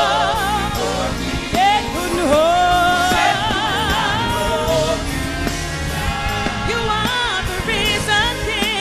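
Live gospel worship music: voices singing with heavy vibrato and melodic runs over a backing band.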